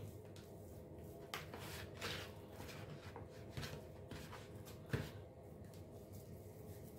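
Faint rustling and soft knocks of hands scooping and rolling sticky oatmeal biscuit dough in a mixing bowl, with a sharper knock about five seconds in.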